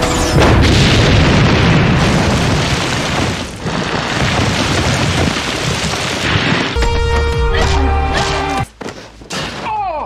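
Explosion sound effect from a TV action scene: a loud blast about half a second in, then several seconds of dense rumbling noise over dramatic score music. The noise gives way to held music notes in the last few seconds.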